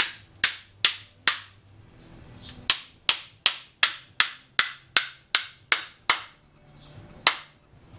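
Hammer blows driving a lawn mower deck spindle shaft home through its new bearings in the spindle housing. There are sharp strikes: four, a short pause, a run of ten at a little under three a second, then a single last blow.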